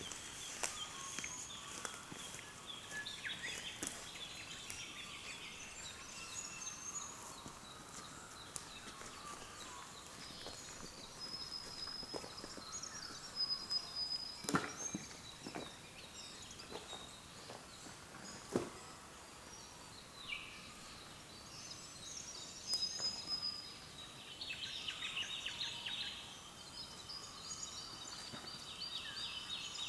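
Dawn chorus of several birds calling and singing at once: overlapping chirps, trills and short whistles. Two sharp clicks stand out near the middle.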